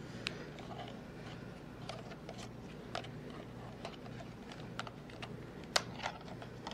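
Scattered light clicks and taps of hands handling a plastic camcorder, with a couple of sharper clicks near the end, over a low steady hum.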